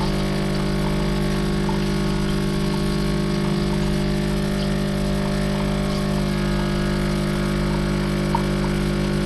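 Capsule coffee machine's water pump running with a steady hum, pushing out plain hot water because no coffee is being brewed.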